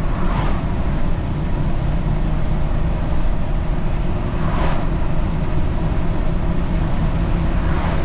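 Ford F-550's 6.7-litre Power Stroke V8 turbo-diesel and its road noise, heard from inside the cab: a steady low rumble as the derated engine, towing a heavy trailer, pulls slowly up through highway speed. A few brief whooshes pass over it.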